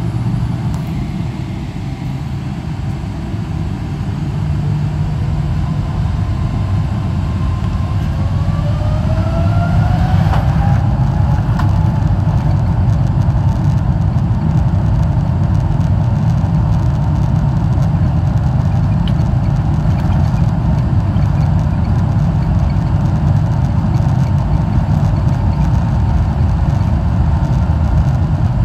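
Boeing 777-300ER's GE90 jet engines heard from inside the cabin, spooling up. Two whines rise in pitch about eight to eleven seconds in as the rumble grows louder, then the rumble holds steady and loud, typical of engines reaching takeoff thrust for the takeoff roll.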